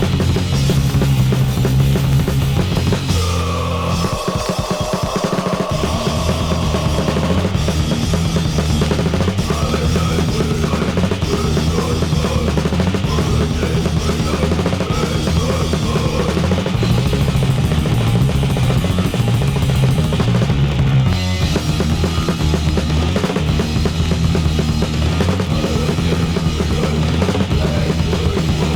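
Loud, fast punk rock from a record: a full band with a pounding drum kit, bass drum and cymbals driving under guitar and bass. A high note is held for a few seconds about three seconds in.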